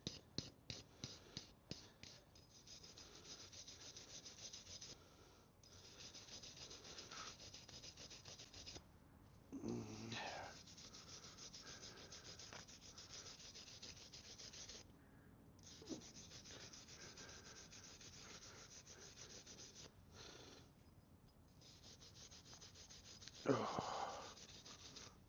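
A brush scrubbing grime off a part during a Land Rover Defender 90 wheel bearing replacement: a run of quick strokes at the start, then long spells of steady scratchy scrubbing with short pauses. A sharp knock near the end is the loudest sound.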